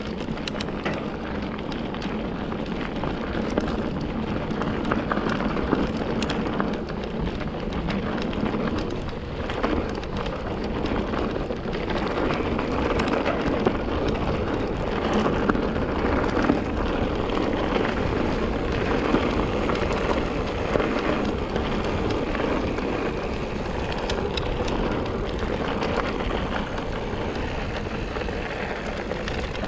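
Mountain bike riding a gravel single track: continuous tyre noise on loose gravel, with the bike rattling and clicking over bumps throughout.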